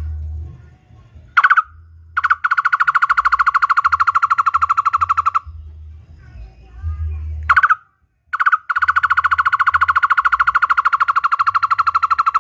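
Barbet (takur) calling: a short single note, then a long, even run of rapid identical notes, more than ten a second, lasting about three seconds. After a pause the same pattern comes again, a single note or two and then another fast run still going at the end.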